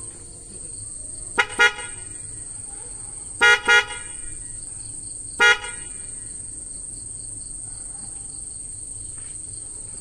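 Newly fitted aftermarket 'Polo' dual electric car horns, wired through a relay, sounding in five short toots: a quick pair, another quick pair, then a single toot. This is the first test of the installation, and the horns work properly.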